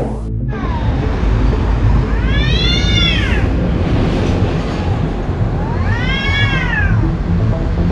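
Cats yowling in a fight: two long drawn-out caterwauls, each rising and then falling in pitch, about three seconds apart, over steady low background noise.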